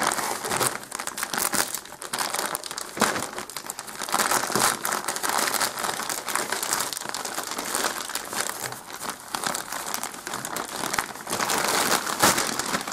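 Plastic mailing bag crinkling and rustling as hands open it and pull it about, a dense, irregular run of crackles.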